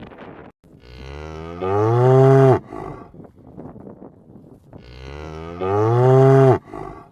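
Cow mooing: two long moos about four seconds apart, each rising in pitch and growing louder before cutting off.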